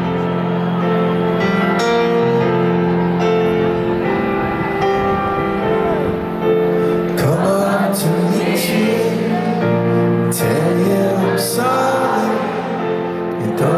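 Piano playing slow, sustained chords at a live concert. From about halfway through, crowd voices cheer and call out over it.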